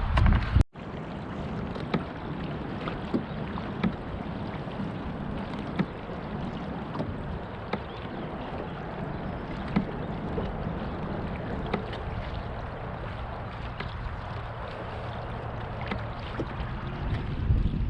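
Steady wind rumble on the microphone outdoors by the water, with scattered light clicks and taps.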